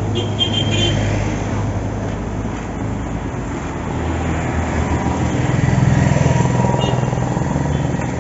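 Road traffic: motor vehicle engines running close by, one growing louder about five to seven seconds in as it passes.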